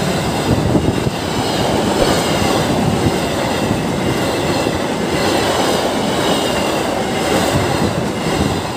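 KA Ranggajati passenger train's coaches rolling past close by: a steady, loud rumble and rattle of steel wheels on the rails.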